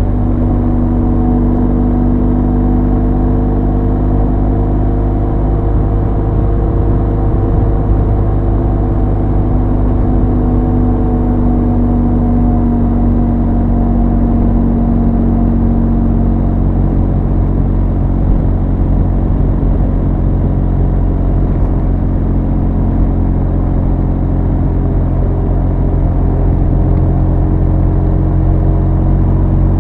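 Motorcycle engine and exhaust running steadily at cruising speed, the note dropping slightly in pitch about halfway through.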